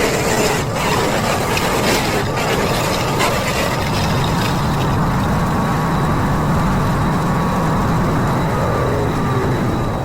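A small engine running steadily, with a few sharp cracks in the first couple of seconds.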